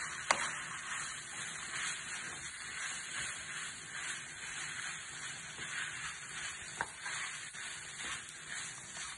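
Already-cooked fish pieces frying in a pan, sizzling steadily while being stirred with a wooden spoon, with a couple of light knocks of the spoon against the pan.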